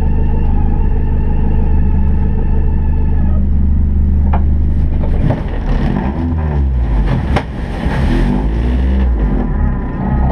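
Honda Civic ice racer's engine idling steadily, then revving up and down from about five seconds in as the car works its way off a snowbank, with a hiss and a couple of sharp knocks over the revving.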